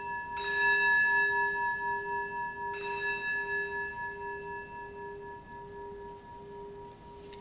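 Altar bell struck twice, about half a second in and again near three seconds, each stroke ringing on and fading slowly: the consecration bell marking the elevation of the host.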